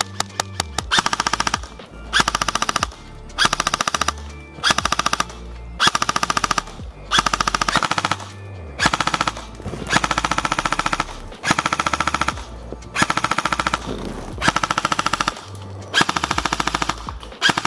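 Evolution Airsoft Reaper XS electric airsoft gun (AEG) firing a few single shots, then more than a dozen short bursts of rapid fire, each a fast, even rattle lasting about half a second to a second.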